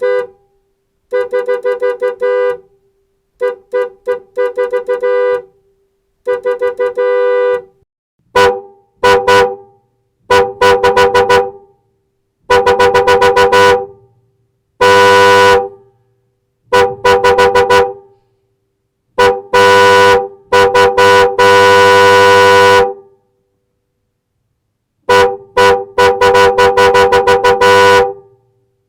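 Car horn honking in a long series: quick runs of short beeps alternate with several long blasts, with silent pauses between groups. The longest pause comes shortly before the end.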